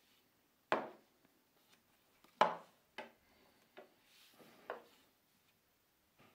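Small steel parts of a lathe live centre being handled and fitted together by hand: five sharp knocks and clicks spread over a few seconds, the second the loudest with a short ring, and faint rubbing between them.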